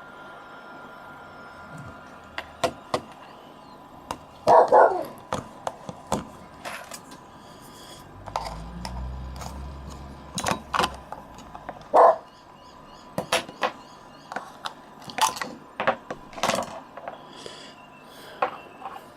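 A dog barking a few times, short separate barks about 4 to 5 seconds in and again near 12 seconds, among scattered sharp clicks and knocks.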